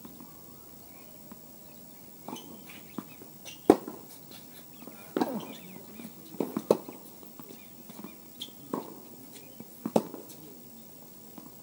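Tennis balls being struck by rackets and bouncing on the court during a rally: a series of sharp pops, roughly one every second or two, the loudest a little under four seconds in.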